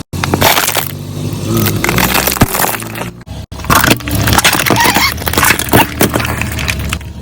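A car running over brittle objects, with repeated cracking and crunching over the sound of its engine. The sound breaks off abruptly twice, near the start and about halfway through.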